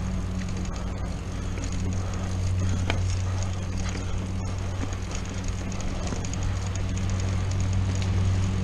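Mountain bike ridden along a dirt singletrack, heard from a chest-mounted camera: steady rolling noise from the tyres and wind on the microphone, with small rattles and ticks from the bike and a steady low hum throughout.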